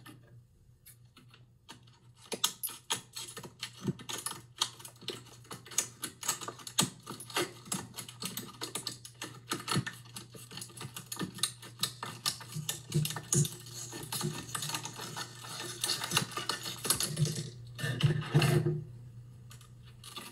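Scissors cutting through a stiff plastic clamshell blister pack, with a dense, irregular run of sharp snips, clicks and crackles of the plastic starting about two seconds in. The plastic is handled and pried apart near the end.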